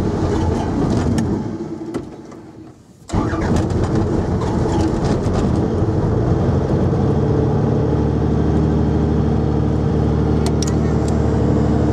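Robinson light helicopter's piston engine and rotor running on the ground, heard from inside the cabin. The sound fades about two seconds in and comes back abruptly a second later, and from about seven seconds in it settles into a steady, even drone of several tones.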